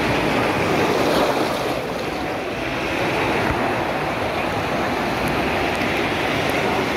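Artificial wave-pool surf: waves breaking and churning around the bathers, a steady rush of water.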